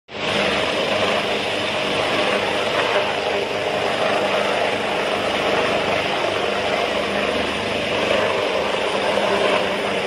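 Helicopter hovering low, its rotor and engine making a steady drone.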